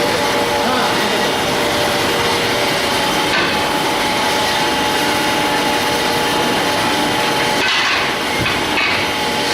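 CNC axle-turning lathe running and machining steel axle stock: a steady, loud, rough mechanical rattle with several steady whining tones.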